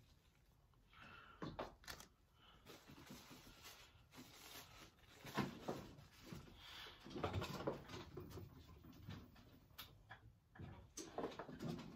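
Faint rustling of parchment paper and a few soft knocks as fresh mozzarella is set on an uncooked pizza and someone moves about a kitchen.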